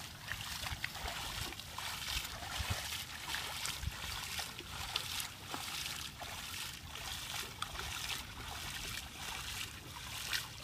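Feet wading and kicking through shallow muddy water, with a run of irregular splashes, several a second.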